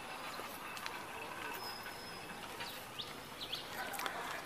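Faint outdoor background ambience with a few short bird chirps scattered through it and a brief high, steady whistle about a second and a half in.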